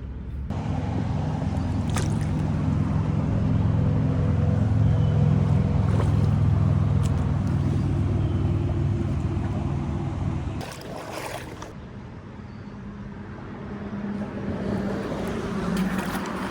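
Small engine of a lawn mower running steadily. It drops away sharply about ten seconds in, then comes back fainter and builds near the end.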